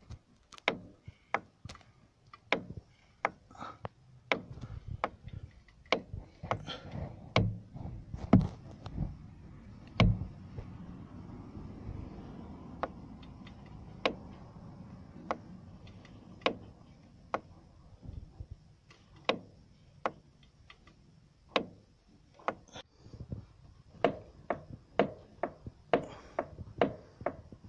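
Repeated sharp knocking from the front strut top-mount area of a Renault Megane II with the steering at full left lock, irregular knocks about one or two a second. The uploader puts it down to a plastic part knocking rather than the top-mount bearing.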